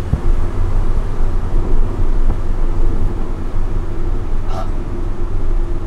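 Inside the cabin of a BMW E90 330i track car: its straight-six engine running at moderate revs with road and wind noise, the revs easing down as the car slows.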